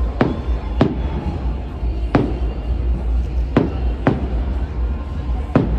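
Aerial fireworks bursting overhead: about six sharp bangs at uneven intervals, each trailing off with an echo, over a steady low rumble.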